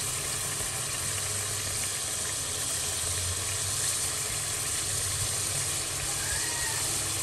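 Masala paste sizzling steadily as it fries in oil in a metal kadhai, with spice powders just added on top.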